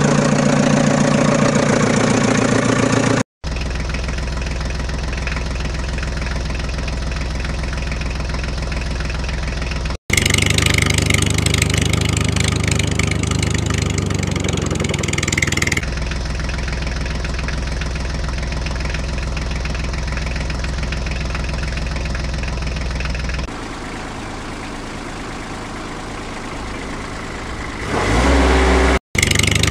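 Dubbed-in vehicle engine sound running steadily at idle, spliced into several pieces with abrupt cuts every few seconds, each piece with a somewhat different pitch and loudness.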